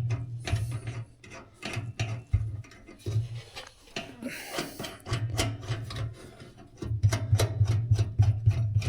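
Background music with a steady beat. It thins out for a few seconds in the middle, where a rubbing, rasping work noise is heard, then comes back strongly near the end.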